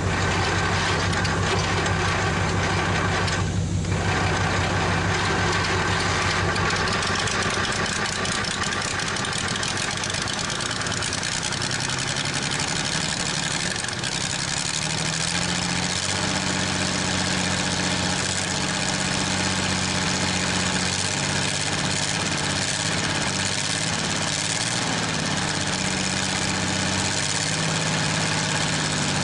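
Chrysler industrial 218 flathead six in a Worthington tractor running steadily on all six cylinders, its speed picking up a little about halfway through, with a rattle from its failing water pump.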